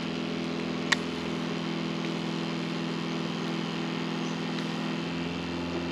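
Camplux portable propane tankless water heater running with its 12-volt electric water pump: a steady motor hum over the hiss of flowing water as the lit burner brings the water up to hot. A single sharp click about a second in.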